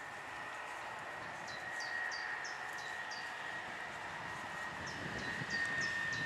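A bird chirping repeatedly, with short calls that fall in pitch, about two to three a second, in two bouts. A steady high-pitched tone and faint rustling run underneath.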